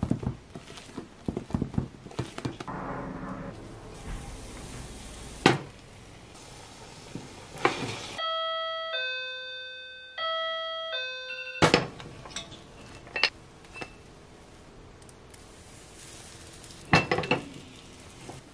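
A two-note ding-dong chime like a doorbell sounds twice in a row, starting about eight seconds in, with the room noise cut away beneath it. Around it, metal kitchenware clinks and knocks, including utensils against a stainless steel mixing bowl.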